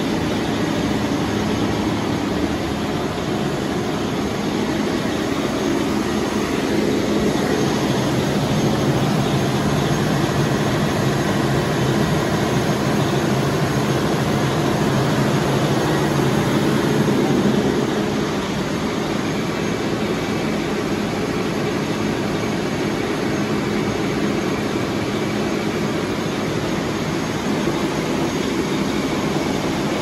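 Industrial water chiller running under test: a steady, loud machine drone with a low hum from its refrigeration compressors and fans. It swells slightly in the middle and eases a little about eighteen seconds in.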